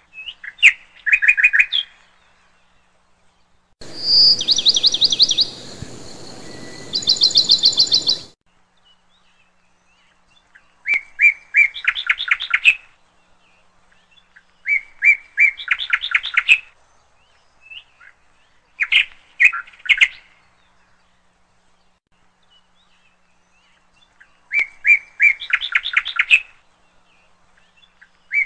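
A songbird singing short phrases of quickly repeated chirps that run into fast trills, repeated every few seconds with quiet gaps between. From about 4 to 8 seconds in, a steady hiss lies under higher, faster phrases.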